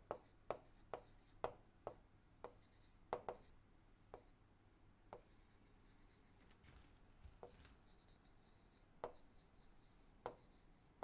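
Faint stylus writing on a tablet screen: sharp taps as the pen touches down, with short scratchy strokes between them.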